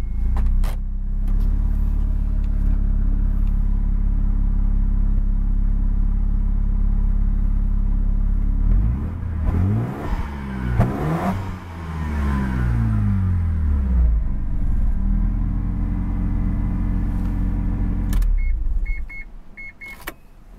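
Mazda RX-7 FD3S's twin-turbo 13B rotary engine idling steadily, then revved up and down several times to about 4,500 rpm before settling back to idle. It then shuts off near the end, followed by a few short electronic beeps.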